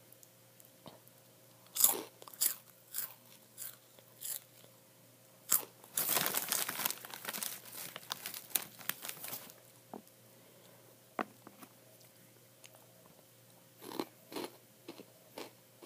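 Hot Cheetos being bitten and chewed close to the microphone: scattered sharp crunches, with a dense run of crunching about six seconds in that lasts about three seconds, then a few more crunches near the end.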